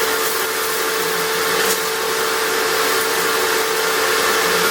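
Steady whir of an electric appliance motor: an even rushing noise with a constant mid-pitched hum.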